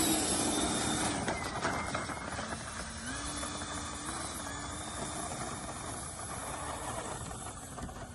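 Electric motor and propeller of a remote-control model plane running, a steady whine over a noisy hiss that steps up in pitch about three seconds in as the throttle is opened.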